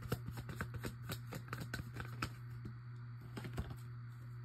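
Tarot cards or paper being handled: a quick run of light, irregular clicks and taps for about two seconds, then a couple more a little later. A steady low hum runs underneath.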